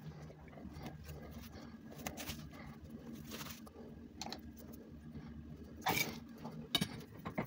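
Faint rustling and small clicks and knocks of tools being handled and moved about on a cluttered workbench, over a low steady hum, with a couple of sharper knocks near the end.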